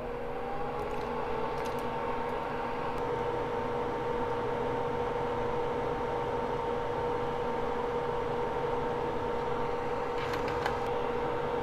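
Small electric fan motor running up to speed, its whine rising during the first second and then holding steady over an airy hiss. A couple of faint clicks come about two seconds in and near the end.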